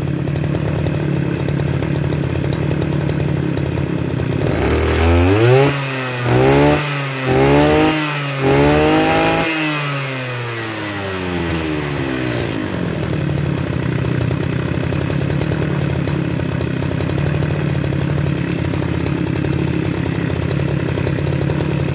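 Makita MEM302 two-stroke brush-cutter engine idling, then revved up sharply four times in quick succession about a third of the way in, each rev falling straight back. It then returns to a steady idle.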